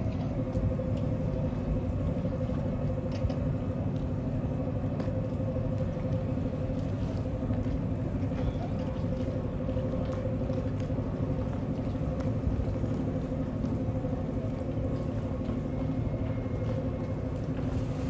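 Yacht machinery running: a steady low rumble with a constant hum, unchanging throughout.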